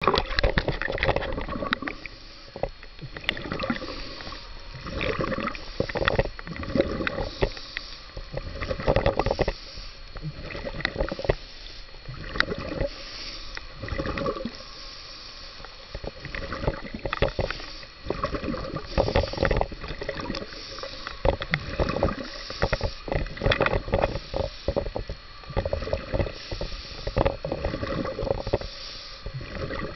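Muffled water sloshing and splashing around a camera held just under the sea surface, coming in irregular surges every second or two.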